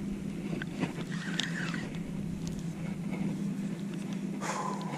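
A steady low motor hum, with a few light clicks and a brief higher tone near the end.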